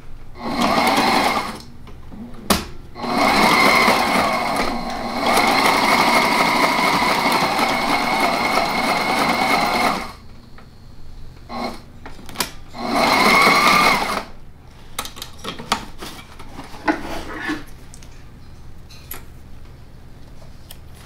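Electric sewing machine stitching a seam through heavy cushion boxing fabric in starts and stops: a short run, a long run of about seven seconds, two brief blips, then another run of about a second and a half. After that only light clicks of the fabric and machine being handled.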